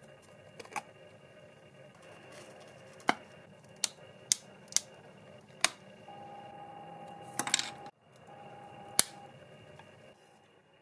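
Sharp clicks and snaps of small parts of a rusted model car being pried and pulled apart by hand, about eight separate clicks with a quick cluster of them about three-quarters of the way through.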